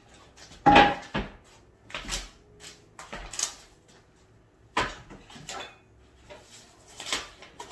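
Kitchenware being handled at a counter, a wooden cutting board among it: a string of irregular clatters and knocks. The loudest comes just under a second in and rings briefly.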